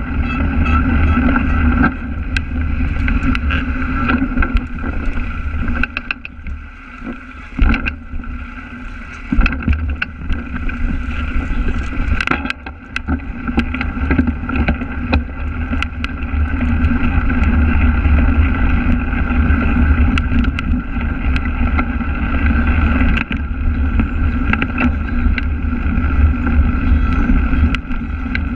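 Wind buffeting and low rumble on an action camera mounted on a cyclocross bike riding over rough grass, with frequent sharp knocks and rattles as the bike bounces over bumps.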